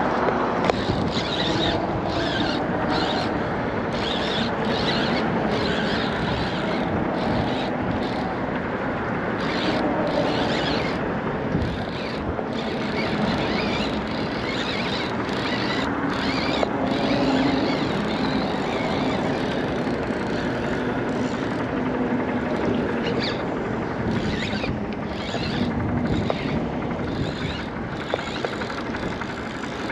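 Steady wind noise and choppy water slapping against a small boat's hull, with a faint low hum underneath that swells now and then.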